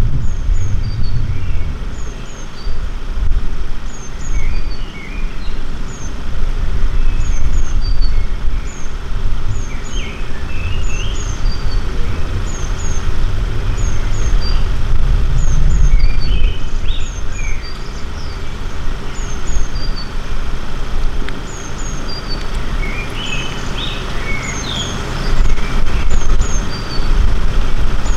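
Birds chirping outdoors, one repeating a short high double chirp about once a second, with bursts of other song now and then, over a continuous low rumble that swells and fades.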